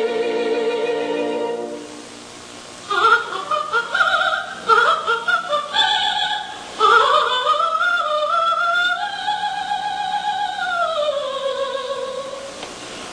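Operatic soprano voice singing a cadenza: a held note with wide vibrato, a brief pause, quick coloratura runs, then a long sustained high note that swells and slowly falls near the end.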